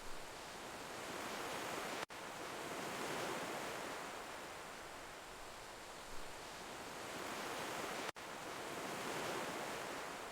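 Ocean waves washing on a shore: a steady rush of surf that swells and eases about every six seconds, broken twice by a split-second dropout.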